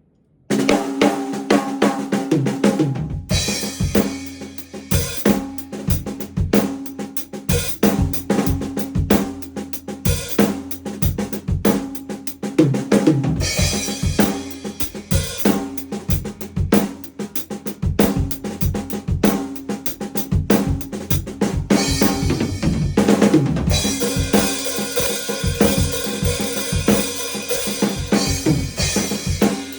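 A drum kit played in a steady groove: kick drum, snare and hi-hat, with cymbals washing in about four seconds in and again in the last third.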